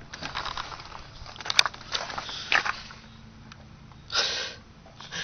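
A car door being unlatched and swung open: scattered knocks and handling noise, with one sharp click about a second and a half in. About four seconds in comes a short breathy burst.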